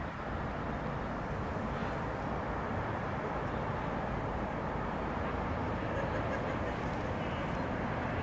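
Steady outdoor background noise: an even, unbroken rumble and hiss with no distinct events.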